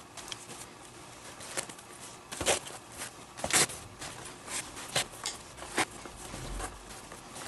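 Leather lace of a Mizuno Global Elite junior baseball glove being pulled through the lacing holes with a lacing needle and the glove handled: a string of short swishes and leather rubs, the sharpest about two and a half and three and a half seconds in.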